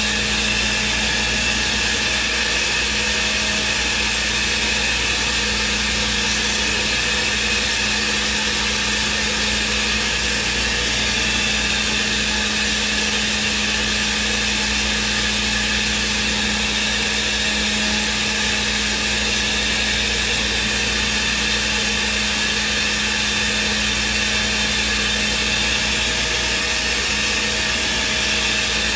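Thermwood CNC router spindle running at speed while machining a block. Its steady machine noise holds a constant low hum and several high steady tones over a hiss, without change.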